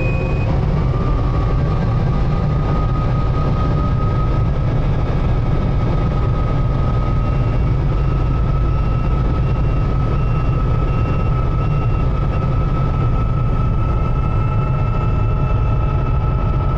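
Guimbal Cabri G2 helicopter cabin noise in flight: a steady, loud rotor and engine drone with a steady whine that rises slightly in pitch early on. A faint repeated beeping sounds for a few seconds in the middle.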